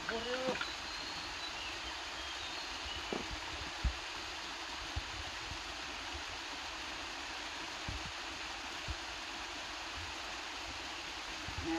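Small waterfall and mountain stream running with a steady rush, with a few light thumps.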